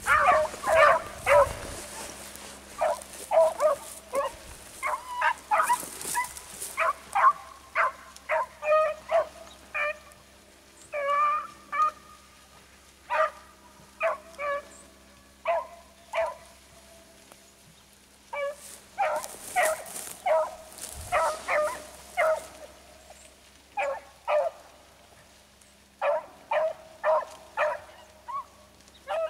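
A pack of beagles baying on a rabbit's line: many short, overlapping bays in quick clusters, with a brief lull near the middle.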